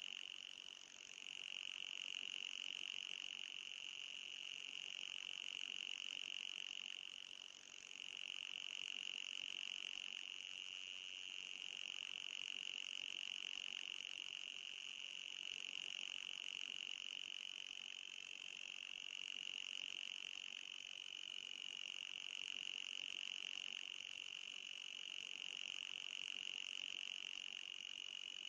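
Anti-mosquito repeller sound effect: a steady high-pitched whine with a fainter higher overtone, wavering slightly in pitch. It dips briefly about a second in and again at about eight seconds.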